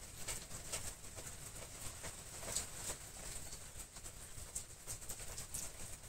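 Boxwood sprigs rustling and crackling as they are handled and pushed into floral foam: irregular soft clicks and leaf rustles, the sharpest about two and a half seconds in.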